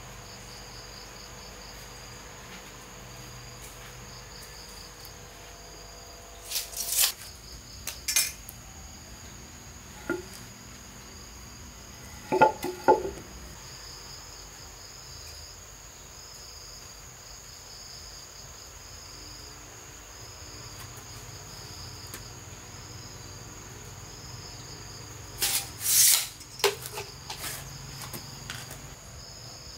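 Crickets chirping steadily in a fast, even pulse. A few sharp knocks and clatters break in: a pair about a quarter of the way in, a double knock near the middle, and a cluster near the end.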